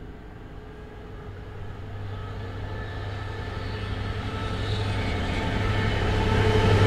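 Class 66 diesel-electric freight locomotive approaching, its two-stroke V12 engine's low steady drone growing louder.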